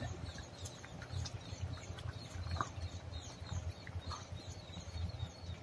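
Metal spoon stirring thick curry in an aluminium pot: soft scraping, with one light clink about two and a half seconds in, over a low rumble. Faint bird chirps come and go in the background.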